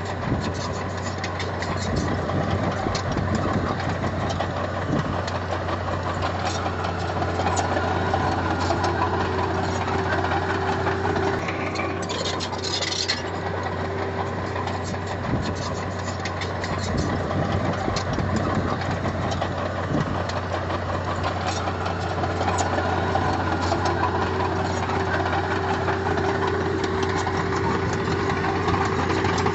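Heavy earthmoving machine's diesel engine running steadily, with scattered clanks and a brief hiss about twelve seconds in.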